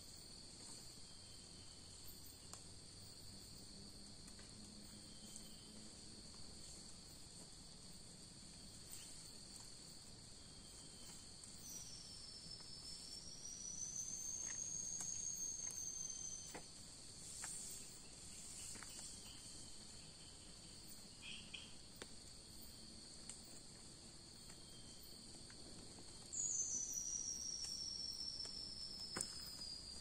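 Faint steady chorus of insects at two high pitches, with a long high gliding call twice: a wavering one in the middle and a falling one near the end.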